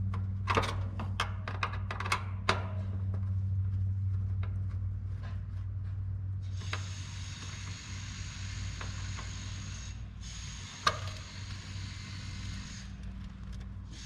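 Screwdriver backing out the screw on the metal capacitor bracket of an air conditioner's outdoor unit: a quick run of small metallic clicks in the first couple of seconds, then a single click later on, over a low steady hum. A steady hiss comes in about halfway and stops shortly before the end.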